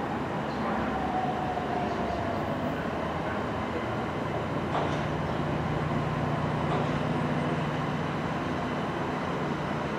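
Class 377 Electrostar electric multiple unit running into the platform. A steady running noise carries throughout, with a whine falling in pitch over the first couple of seconds, a single sharp click about halfway, and a low steady hum in the second half.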